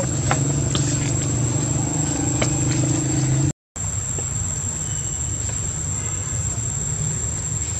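Outdoor background noise: a steady low hum under an even hiss, with a constant high-pitched whine over it. The sound drops out for a moment about three and a half seconds in, then the hiss carries on with less of the hum.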